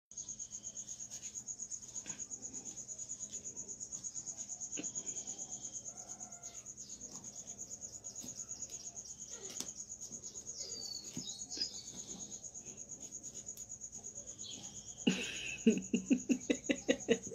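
An insect's steady, high-pitched pulsing trill runs throughout. Near the end a person's voice comes in quick repeated bursts and is louder than the trill.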